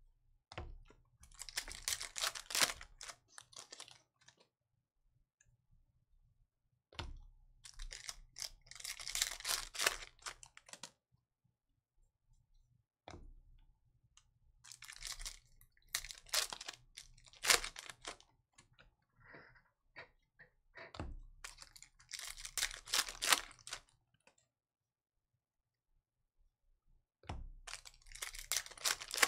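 Foil Panini Contenders football card pack wrappers crinkling and tearing open by hand, in five bursts of a few seconds each with short quiet gaps between.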